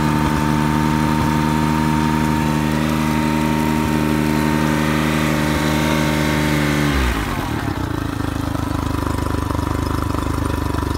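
Honda BF50 four-stroke three-cylinder outboard running in a test tub after a water pump replacement. It holds a steady raised speed, then about seven seconds in the pitch falls and it drops to a slower idle with a pulsing beat as the throttle linkage is eased back.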